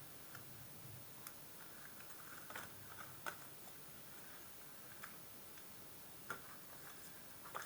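Pokémon trading cards being handled: a few faint, irregular clicks and taps as cards are slid and flipped against one another, over a faint low hum.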